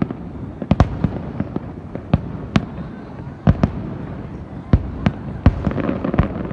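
Fireworks display: about a dozen sharp bangs of bursting shells at irregular intervals, over a continuous rumble of further bursts, with a dense crackle near the end.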